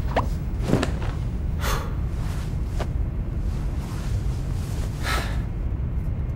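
A man's sleepy breathing and snorts, a few short breaths as he dozes, over a steady low rumble.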